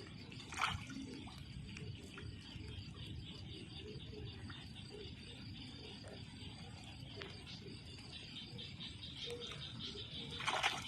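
Floodwater sloshing and splashing as someone moves through a flooded rice field, with two brief louder splashes, about half a second in and near the end. A steady, high-pitched, rapidly pulsing insect chorus runs behind it.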